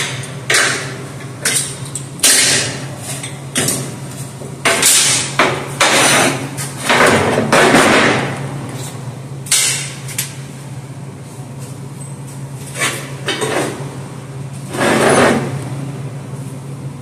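Steel hitch bar, clamps and locking pliers clanking and scraping against a steel welding table as they are moved and set in place: a dozen or so irregular knocks and scrapes, some sharp and some dragging on for about a second, over a steady low hum.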